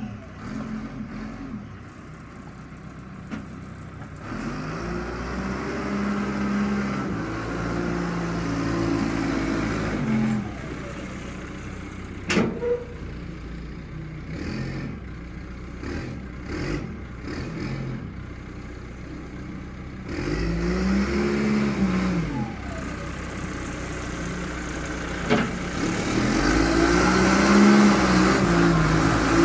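John Deere 310 backhoe's engine working under load, revving up and easing off again and again as it moves sand. A few sharp clanks come in the middle.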